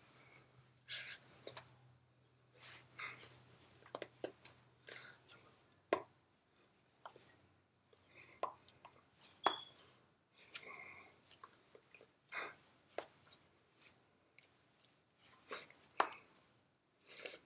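Scattered sharp clicks and soft taps with short breathy puffs, the incidental mouth and hand sounds of someone signing: lip smacks, tongue clicks, breaths and hands meeting. A faint low hum stops about six seconds in.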